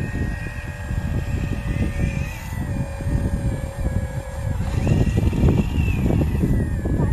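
Small electric motors of radio-controlled construction models whining steadily, their pitch shifting slightly as they work, over rough low crackling.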